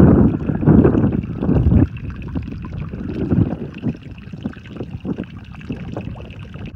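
Wind buffeting the microphone, heavy for about the first two seconds and lighter after, over a faint trickle of water seeping from a leaking crack in a concrete water tank.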